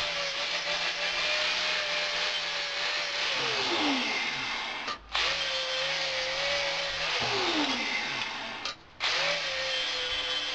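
Electric power tool motor running with a steady whine and a loud hiss. Twice it winds down with a falling pitch, breaks off abruptly and starts up again.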